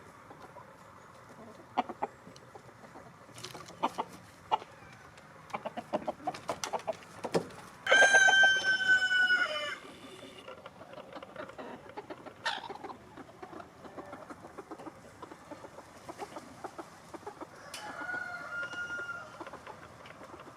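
Chickens clucking with short scattered clucks, then a rooster crowing once, loud and about two seconds long, a little over a third of the way in; a second, fainter crow comes near the end.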